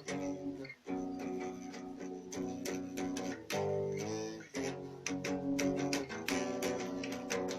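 Guitar music: chords plucked and strummed, changing every second or so.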